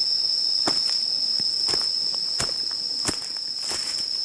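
Night insects singing one steady high-pitched note without a break. Over it come footsteps on dry leaf litter, about every two-thirds of a second.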